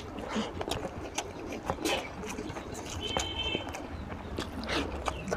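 Wet chewing and mouth clicks of a person eating rice and mutton fat curry by hand, many short sharp clicks and smacks in quick, irregular succession.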